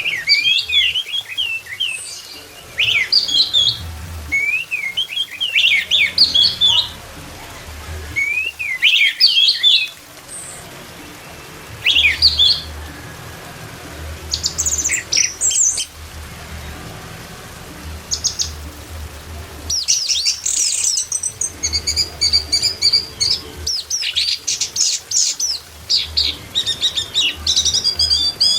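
Orange-headed thrush singing in short phrases of quick, sliding whistled notes separated by pauses, the phrases growing longer and denser, into rapid runs of notes, in the second half.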